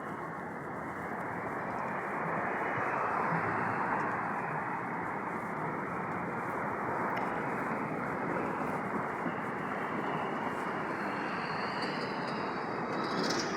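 Steady rush of city street traffic, swelling over the first couple of seconds and then holding.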